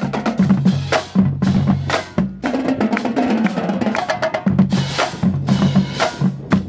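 Marching band drumline playing together: snare drums, tenor drums and pitched bass drums in a fast, steady pattern of hits, with low bass-drum notes beneath the snares.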